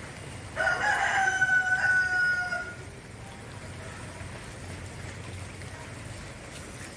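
A rooster crows once, a single held call about two seconds long, starting just over half a second in.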